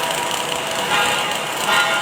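Automatic welding machinery running: a steady hissing, crackling din with a faint machine hum, swelling briefly twice.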